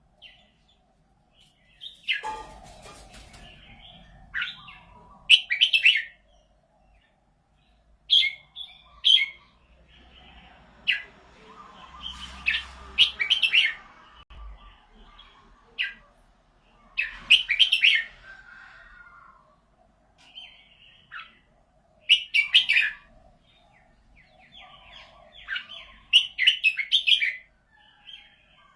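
Red-whiskered bulbul singing: a string of short, bright whistled phrases, each under a second or so, repeated with brief pauses between them.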